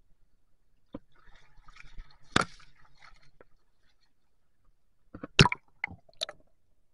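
Rubber hip waders stepping and sloshing through shallow stream water. A stretch of splashing peaks in one sharp splash about two and a half seconds in, and a quick run of three or four sharp splashes comes near the end.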